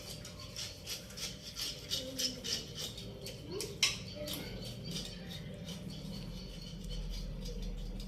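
A cat chewing and smacking as it eats rice: a quick, irregular run of small clicks, with one sharper click a little under four seconds in. The clicks thin out over the second half.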